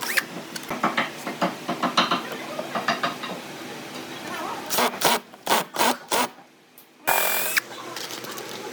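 Hand work on wood: a run of irregular taps, knocks and scrapes, a short lull, then a brief steady hiss with a thin whine near the end.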